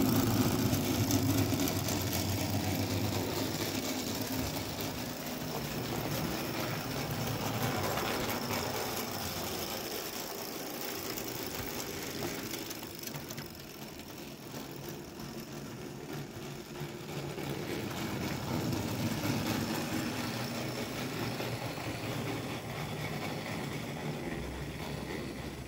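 Bing clockwork tinplate O-gauge locomotive running with its train: the wound spring motor whirring and the metal wheels clattering on tinplate track in a steady mechanical run. It is loudest at the start, fades about halfway through and swells again later as the train's distance changes.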